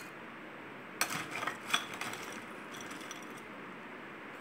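Crushed ice being spooned into a tall drinking glass, ice and a metal spoon clinking against the glass a few times in quick succession about a second in.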